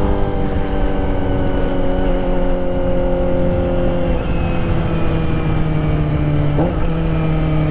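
Kawasaki ZX-25R's 250 cc inline-four through a Prospeed Shark high-mount exhaust, its note falling slowly as the bike slows off the throttle, then jumping up in pitch about six and a half seconds in as it is shifted down a gear.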